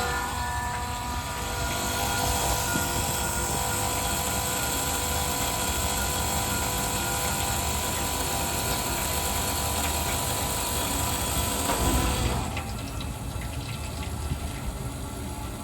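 Electric fuel transfer pump running steadily as it pumps fuel into the truck to prime it. About twelve seconds in, the high whine and hiss drop away and a quieter, rougher hum carries on.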